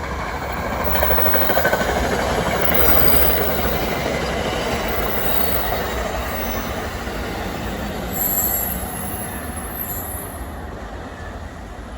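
A train passing close by, its wheels and cars rumbling steadily on the rails, loudest in the first few seconds and slowly fading. Brief high-pitched wheel squeal about eight seconds in.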